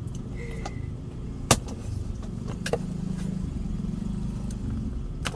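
Steady low rumble like a vehicle engine running, with a few sharp clicks of a cardboard box being handled and opened, the loudest about a second and a half in.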